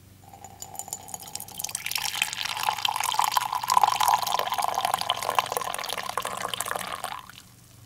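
Coffee poured in a thin stream into a ceramic mug, splashing and gurgling, the pitch of the pour rising as the mug fills. The pour stops about seven seconds in.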